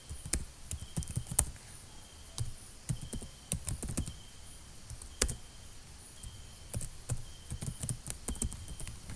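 Computer keyboard typing: irregular keystroke clicks in short runs with brief pauses between them.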